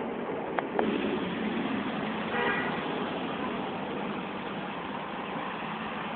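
Steady street traffic noise, with two sharp clicks about half a second in and a short vehicle horn toot about two and a half seconds in.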